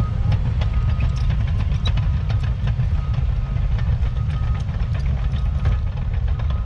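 Caterpillar 953K track loader at work: its diesel engine runs steadily, the steel tracks clank and rattle, and its reversing alarm beeps on and off as it backs up while grading.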